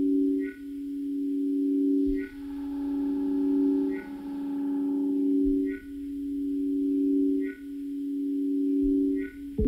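Modular synthesizer music: a low pair of pure sine tones swells up and cuts off about every second and three-quarters, with a short high blip at each restart. In the middle a buzzier tone rich in overtones rises and fades under it.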